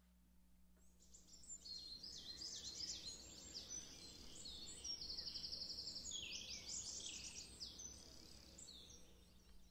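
Faint recorded birdsong, several birds chirping and trilling together, starting about a second in. It is played back on its own as the bird-sound layer of a song's arrangement.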